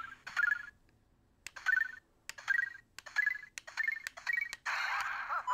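The Lego Super Mario Luigi interactive figure's small speaker plays a string of about seven short electronic two-note bleeps, each with a faint click at the start, as the figure reacts to an enemy figure held to its scanner. Near the end comes a louder, busier burst of game sound effects with sliding tones.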